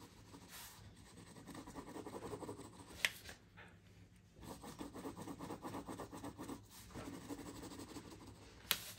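Pencil lead scratching across paper in quick, repeated shading strokes, stopping briefly a little after three seconds in. A sharp click comes just before that pause and another near the end.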